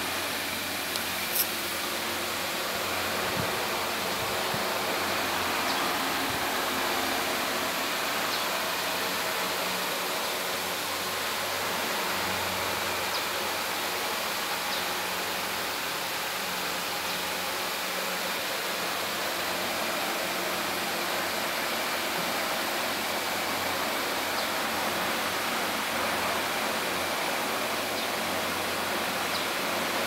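Steady rushing hiss of an electric pedestal fan running, with a faint low hum under it and one short click about a second and a half in.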